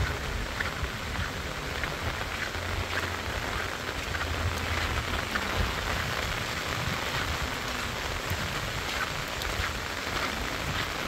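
Rain falling steadily on a wet paved road and roadside plants: an even hiss made of many small drop impacts.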